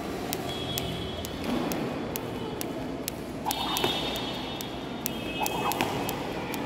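Skipping rope ticking against a hard court floor about twice a second in a steady rhythm as someone jumps rope.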